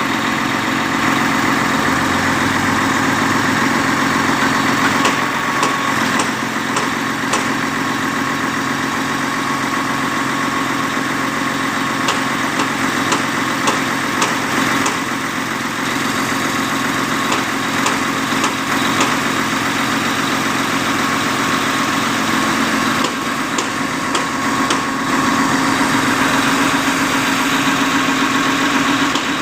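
Engine of an XCMG truck-mounted concrete pump running steadily while the boom is being unfolded, with a steady hum and a higher whine. A few faint clicks come through now and then.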